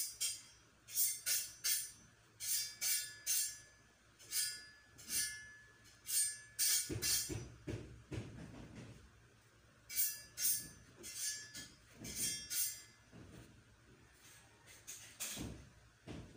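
Coloured pencil scratching across paper in quick shading strokes, coming in bursts of two to four strokes with short pauses between. There is a duller rubbing sound about halfway through and a brief low knock near the end.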